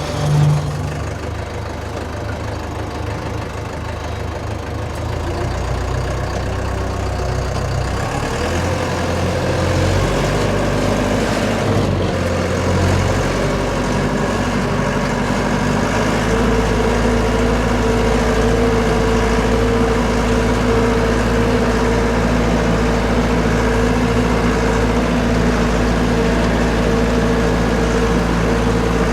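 An engine running steadily, its speed stepping up and down a few times before settling into a steady run about halfway through, with a brief thump right at the start.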